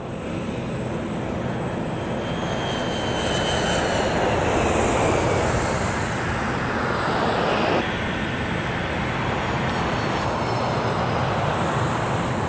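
A loud, steady engine or machinery roar that swells slightly in the middle and then evens out.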